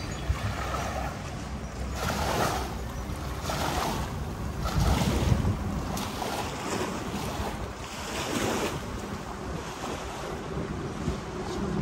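Seawater washing in small waves, with wind, rising and falling in irregular surges about every one to two seconds.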